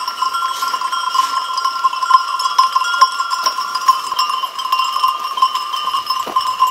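Many bells on a walking flock of sheep jangle together in a continuous ringing wash, with frequent small clinks as the animals move.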